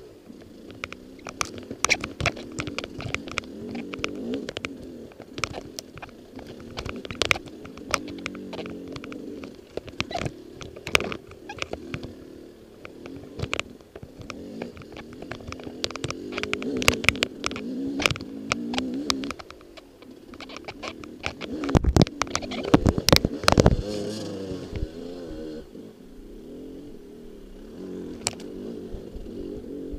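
Dirt bike engine running at low revs, its pitch rising and falling as the throttle changes, with frequent clicks and knocks from the bike jolting over a rough trail. A cluster of heavy thumps comes about two-thirds of the way in, and near the end the engine settles to a steadier tickover.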